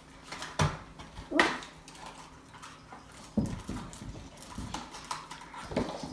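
Knocks and taps from handling a boxed Funko Pop vinyl figure, six or so separate thumps spread over a few seconds.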